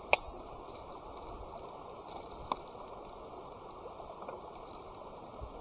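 River water flowing steadily. Two sharp clicks cut through it, one right at the start and one about two and a half seconds in.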